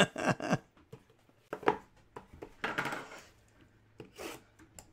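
A box knife cutting and slitting open the wrapping of sealed trading-card boxes: scattered sharp clicks and a few short scraping rustles of plastic and cardboard, with a brief voice sound at the very start.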